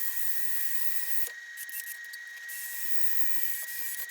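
A small power tool running steadily, a constant high whine over a hiss, the hiss easing for about a second partway through.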